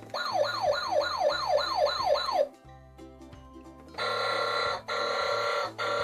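Tonka toy fire engine's electronic sound effects: a fast yelping siren, about three sweeps a second, for about two and a half seconds. After a short pause comes a steady horn blast, broken twice by brief gaps.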